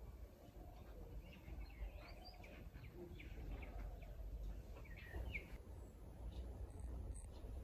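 Faint outdoor ambience: small birds chirping here and there over a steady low rumble.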